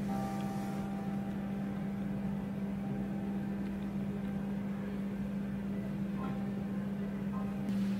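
A steady low machine hum on one held pitch, with fainter higher tones above it.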